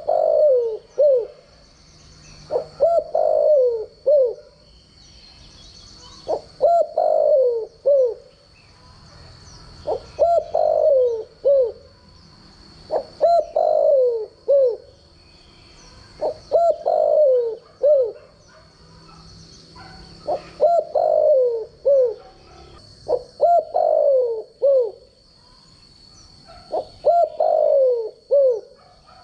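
Spotted dove, a caged decoy bird, cooing its song: a phrase of several falling coos, repeated about every three seconds, some nine times.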